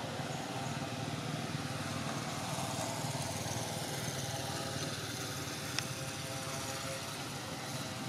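A motor running steadily, with one sharp click about six seconds in.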